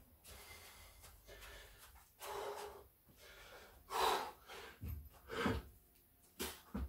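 A man breathing hard between burpee reps, with several loud gasping breaths, the loudest about four seconds in. Near the end there are dull thuds as he drops his hands to the concrete floor.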